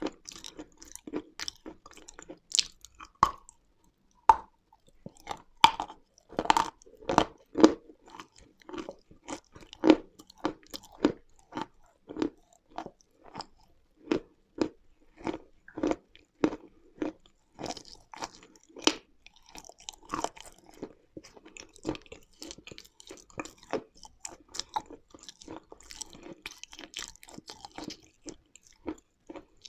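Close-miked chewing of dry, crunchy lumps of edible mineral (chalk and clay): a steady run of crisp crunches, roughly one or two a second, loudest in the first third.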